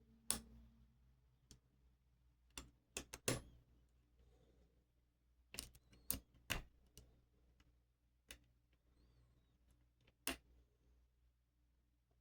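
Lock pick hook and tension wrench clicking and tapping against the pins inside a pin-tumbler lock cylinder: about a dozen short, sharp, irregular metallic clicks, with a quick cluster about three seconds in.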